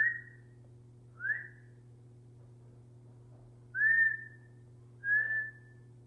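Four whistles. Two short rising ones about a second apart, then, after a pause, two longer ones that rise and then hold a steady pitch.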